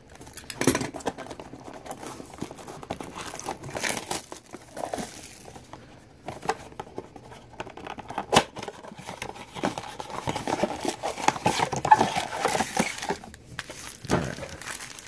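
A cardboard trading-card blaster box being torn open by hand and its wrapped card packs handled, with crinkling, rustling and tearing, and scattered sharp clicks of cardboard.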